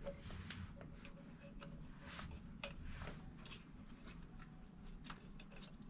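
Faint, irregular light clicks and taps from tools and parts being handled during work on an electric dirt bike.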